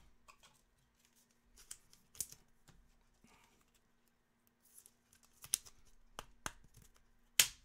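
Trading cards and their wrappers being handled: scattered soft clicks and crinkles, with a sharp snap near the end. A faint steady hum runs underneath.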